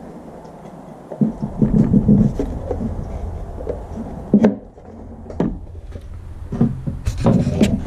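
Handling and assembly sounds: a cluster of clunks and rubbing about a second in, then several separate sharp knocks, over a low steady hum.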